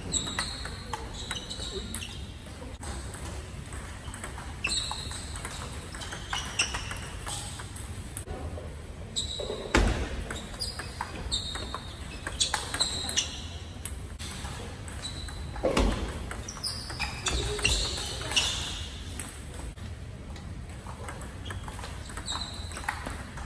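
Table tennis rallies: the ball clicking sharply off the rackets and table in quick exchanges, echoing in a large hall. Short high squeaks come between the hits, and there are two heavier thumps about ten and sixteen seconds in.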